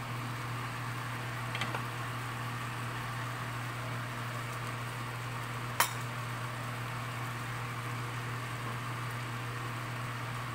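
A pan of tomato sauce with chicken livers simmering, over a steady low mechanical hum, with one sharp click or clink a little past halfway.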